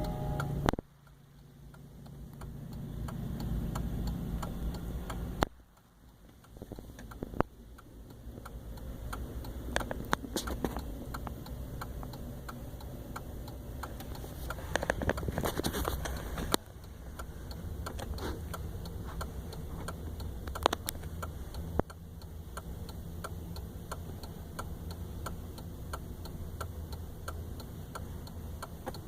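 Empty intermodal flatcars of a slow freight train rolling past, with a low rumble and the steady clicking of wheels over rail joints. The locomotive's horn cuts off within the first second.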